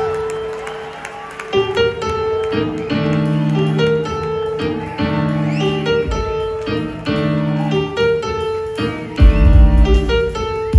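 Live jazz band playing: electric keyboards repeat a short chord pattern over a low bass line, with light percussive ticks. About nine seconds in, a heavy deep bass comes in and the music gets louder.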